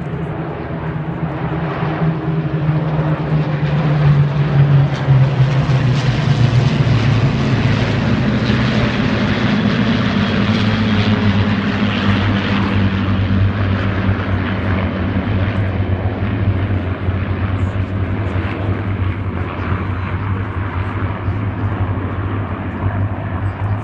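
A formation of propeller-driven warbirds flies over with a deep, steady piston-engine drone. It grows louder about four seconds in as the aircraft pass overhead, then slowly fades.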